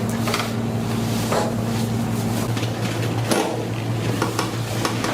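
Soft rustling and light knocks of a person shifting on a padded chiropractic table, with a sharper click about three seconds in, over a steady low electrical hum.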